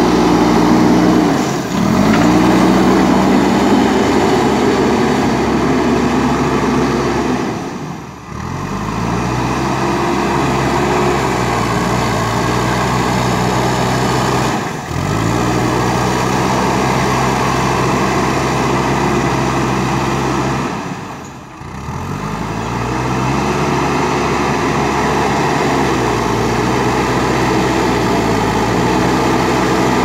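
A JCB backhoe loader's diesel engine runs under load as the front loader bucket pushes soil. Its note is steady but dips and recovers four times.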